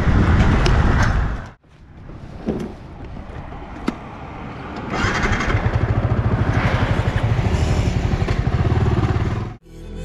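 Motorcycle engine running, in cut-together pieces: a loud stretch that cuts off sharply, a quieter stretch with a couple of faint clicks, then a steady pulsing engine sound from about halfway that cuts off just before the end.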